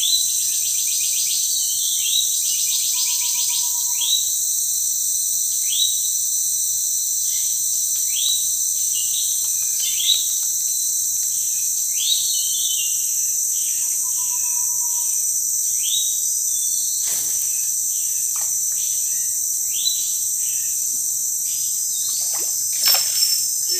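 Forest insect chorus, a steady high-pitched drone, with a bird repeating a short rising call about every two seconds. A few sharp clicks near the end.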